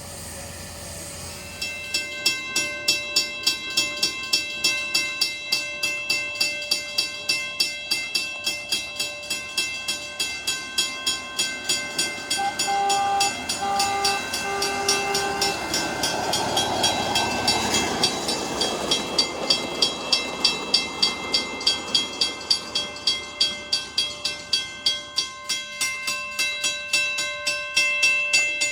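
Background music with a steady beat of about two pulses a second over held chords, with a short run of melodic notes in the middle. A rushing noise swells up under it about two-thirds of the way through.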